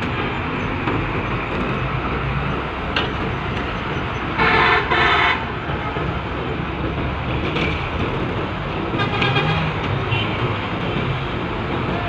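Steady engine and machinery noise, with a vehicle horn sounding two short blasts in quick succession about four and a half seconds in and a fainter horn toot around nine seconds.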